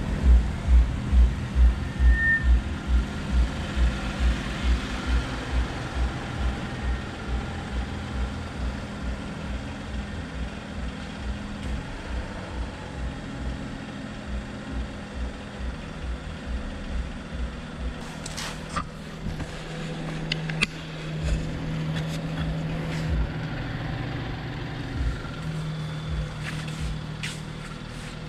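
BMW 435i's N55 turbocharged inline-six idling at cold start through an M Performance exhaust: a steady low drone that pulses about twice a second, the pulsing easing off over the first half. A few sharp clicks and knocks come in the second half.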